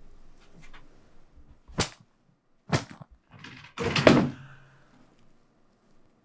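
A handgun being handled: two sharp clicks about a second apart, then a louder clatter and thump about four seconds in.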